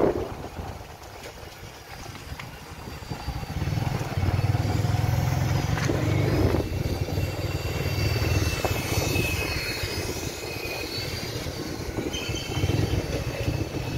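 Motorcycle engine running as the bike rides along, getting louder about three to four seconds in, easing slightly around ten seconds, and picking up again near the end.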